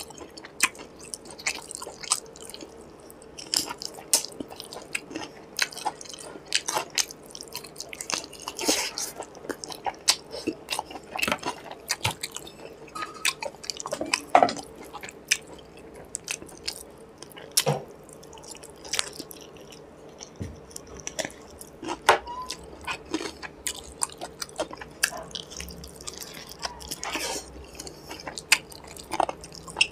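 Close-miked chewing and lip smacking of a person eating chicken leg curry and khichuri by hand, with many short wet mouth clicks throughout.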